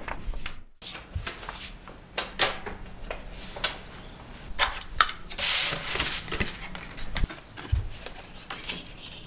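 Paper rustling and crinkling as a paper Christmas-tree decoration and its instruction sheet are handled, with scattered small taps and clicks, the longest rustle about halfway through.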